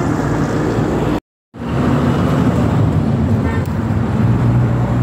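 Steady street traffic noise with a low engine hum. The sound cuts out completely for a moment about a second in.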